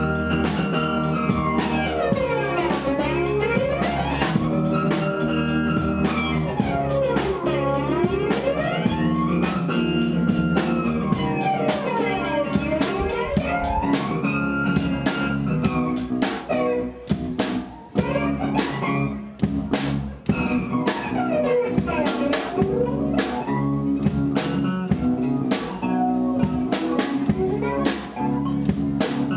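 Amateur rock band playing live on electric guitars, bass guitar and drum kit. A pitched line sweeps up and down over and over, and the drum strokes grow denser and more prominent from about halfway.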